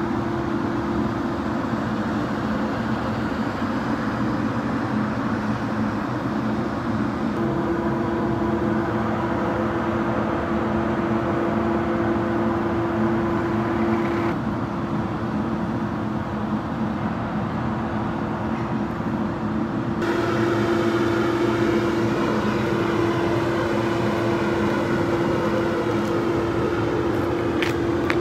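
DAF LF 180 truck's four-cylinder diesel engine idling steadily, a constant hum with a steady whining tone over it.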